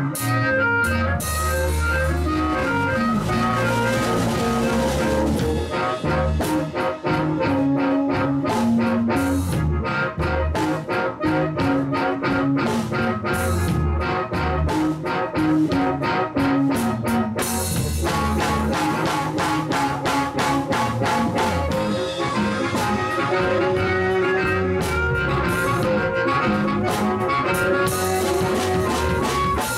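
Live blues band playing an instrumental passage: drum kit keeping a steady beat under electric bass and electric guitar, with a lead line of long held notes.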